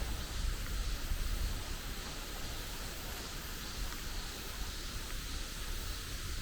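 Steady outdoor ambience: an even hiss with a low rumble underneath and no distinct events.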